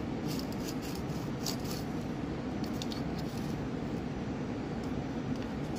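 Knife slicing a block of paneer on a steel plate, the blade ticking and scraping against the metal several times, over a steady low hum.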